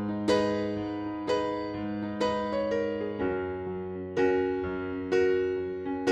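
Background music on an electric piano-like keyboard: chords struck about once a second over held bass notes.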